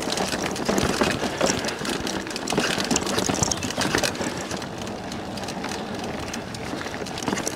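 Bicycle riding over a rough, rocky trail: a steady rush of rolling noise with frequent short clattering knocks.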